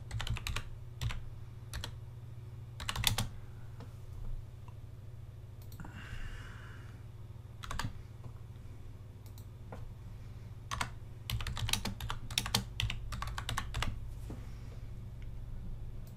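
Computer keyboard typing in short bursts with pauses between them: a run of keystrokes at the start, another about three seconds in, and a longer run from about eleven to fourteen seconds in.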